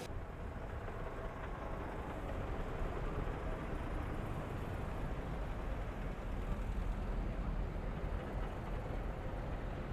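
Low, steady rumble of wind and road noise on the microphone while riding a bicycle along the street.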